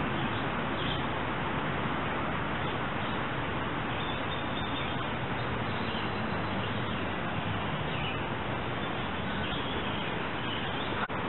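Steady rush of a shallow creek flowing over riffles, with faint bird calls now and then and a brief click near the end.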